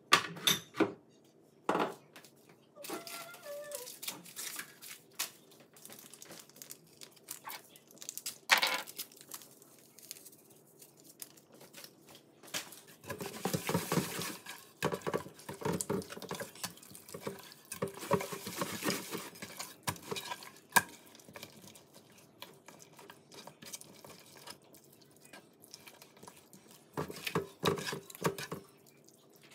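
Raw beef pieces laid into a hot oiled pot, sizzling in hissing bursts about halfway through, with scattered knocks and clatter from the pot.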